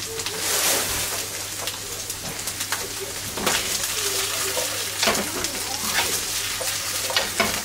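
Mushrooms and asparagus sizzling in oil in a nonstick frying pan as the pan is shaken and tossed over a gas burner, with a few sharp knocks of the pan and spatula.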